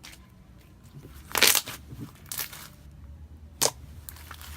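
Clear slime being squeezed and stretched by hand, giving a few crackling pops: a loud one about a second and a half in, another about a second later, and a short sharp click near the end.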